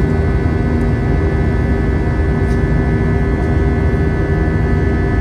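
Airbus A320's jet engines heard from inside the cabin in flight: a loud, steady rumble with a constant hum of a few steady tones over it.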